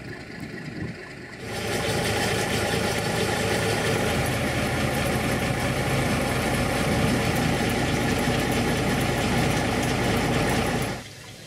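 Diesel engine of the small narrow-gauge diesel locomotive Badger idling steadily, heard close beside its cab. The engine sound comes in about a second and a half in and cuts off abruptly near the end.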